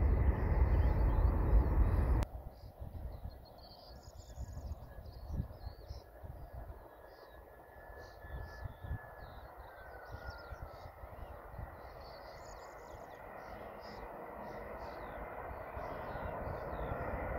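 A departing Airbus A319's jet engines rumble loudly with wind on the microphone, then cut off abruptly about two seconds in. After that, small birds chirp over the faint, distant whine of another Airbus A319's jet engines, which grows slowly louder as it lands.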